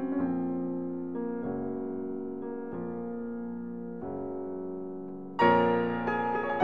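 Background music: held piano chords changing every second or so, growing louder near the end.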